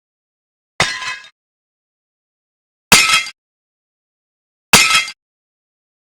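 Metal kitchen tools struck hard three times, about two seconds apart, each blow a loud clang that rings briefly before dying away.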